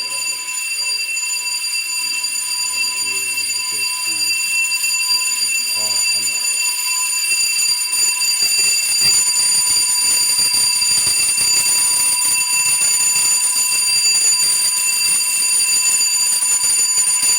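Electronic fire alarm sounder going off in a test of the building's alarm system: one steady, unbroken high-pitched tone, growing somewhat louder about halfway through.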